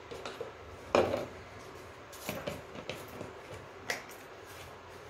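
A metal spoon knocking and clinking against steel dishes and spice containers as spices are spooned out, with one louder knock about a second in and a few lighter clinks after.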